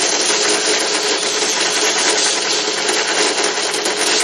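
Benchtop drill press running with a strip of 80-grit sandpaper held against a spinning Dremel cone grinding stone in its chuck: a steady grinding hiss over the motor's hum, dressing the stone's surface.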